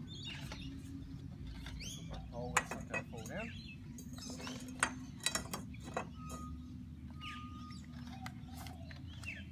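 Footsteps and scattered sharp knocks on a tiled roof as a metal pole is set down on the tiles and a man walks across them; the two sharpest clicks come about two and a half and five seconds in.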